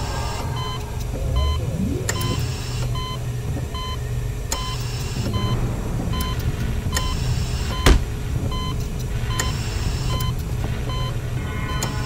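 A patient heart monitor beeping steadily, about once every 1.2 seconds, over a low hum. Short hissing bursts come every couple of seconds, and there is one sharp click about eight seconds in.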